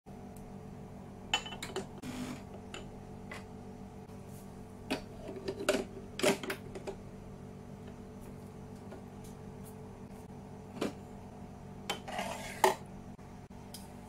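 Metal portafilter clicking and clunking as it is fitted and twisted into the group head of a De'Longhi Icona Vintage ECOV311 espresso machine, with a cup knocking onto the scale on the drip tray, over a faint steady hum. There are a few knocks about a second in, a cluster of louder clunks in the middle, and the sharpest knock near the end.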